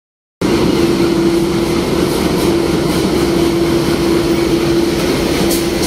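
Diesel locomotive passing close by, its engine running with a steady drone and one held hum. The sound cuts in about half a second in after a brief silence.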